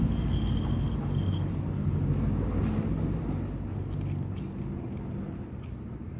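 A motor vehicle's engine runs with a steady low rumble and hum, growing fainter through the second half. A faint high whine sits over it for the first second and a half.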